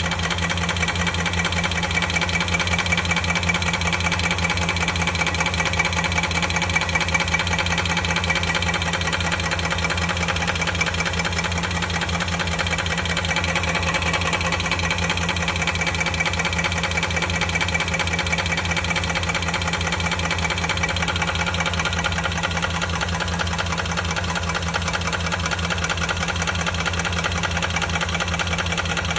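2003 Dodge Durango's 4.7-litre V8 idling steadily with a fast, even ticking: the tapping noise it still makes after a cylinder-head rebuild with new lifters, timing chain and oil pump.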